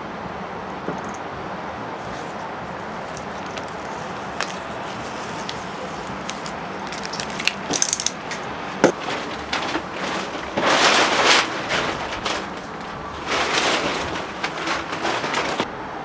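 Peel-and-stick wallpaper being handled and pressed onto a freezer: scattered crinkles and clicks, with two louder rustles of about a second each, about ten seconds in and again about three seconds later, over a steady background hiss.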